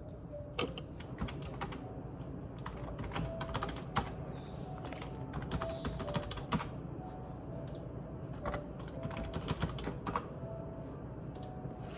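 Bursts of quick, light clicks and taps from hands working at a desk, in clusters of about a second with pauses between.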